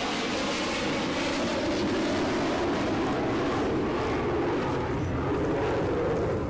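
Steady mechanical drone of an off-road vehicle winching against a homemade chain ground anchor, with fine crackling over it.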